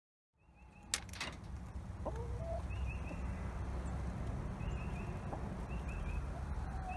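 Backyard hens clucking with short, repeated chirping calls as they feed at a bucket feeder, over a steady low rumble. A couple of sharp clicks sound about a second in.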